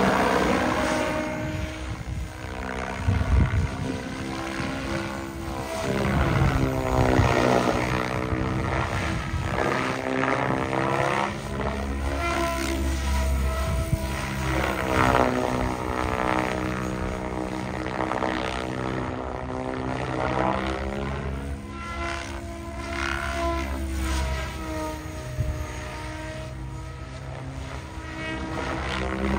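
SAB Goblin Genesis radio-controlled helicopter in aerobatic flight: the whirring buzz of its spinning rotor blades rises and falls in pitch again and again as it swoops past and turns.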